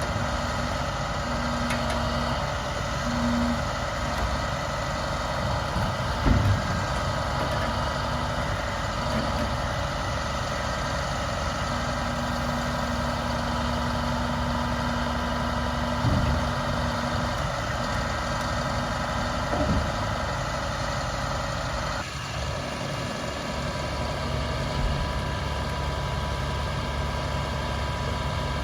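International 7400's MaxxForce DT turbo diesel engine running steadily, with a few short knocks and clunks; the engine note changes about three quarters of the way through.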